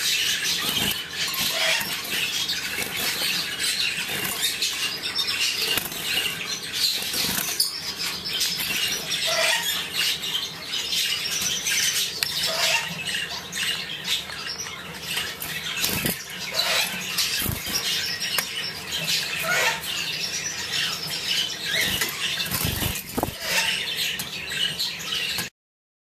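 Male European goldfinch singing: a continuous, rapid liquid twittering of high chirps and trills, with a few soft knocks among it.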